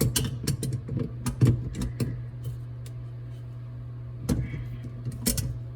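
Clicks and taps of channel-lock pliers working plastic plumbing fittings as they are tightened: a quick run in the first two seconds, then two more about four and five seconds in, over a steady low hum.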